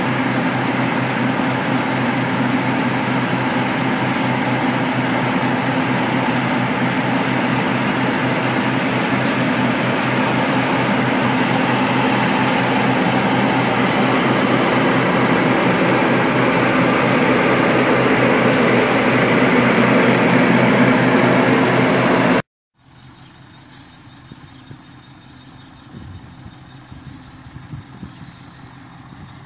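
New Holland TC5080 Hillside combine harvester's diesel engine running loudly and steadily, growing slightly louder as a tractor pulls alongside. About 22 s in the sound cuts off abruptly and is replaced by a much quieter engine idling.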